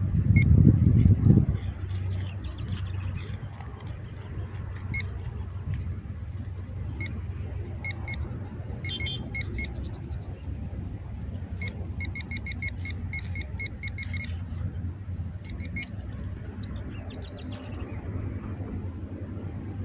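Minelab Go-Find 44 metal detector beeping in short runs of quick beeps as it is held over a metal target in a dug hole, over a steady low rumble. A louder low rumble sounds in the first second or so.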